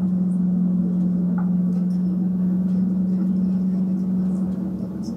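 Boat motor running steadily at an even low pitch.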